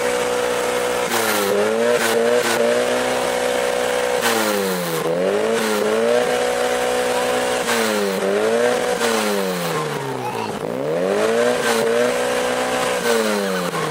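Classic Mini with a 1275cc A-series engine revved hard through a loud competition exhaust. The revs are held high, dropping briefly and climbing back several times, then fall away near the end.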